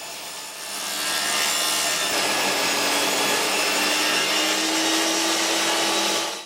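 A power saw cutting through a piece of scrap wood to square its ends and cut it to length: a steady cutting noise over a motor hum that builds up in the first second and stops abruptly near the end.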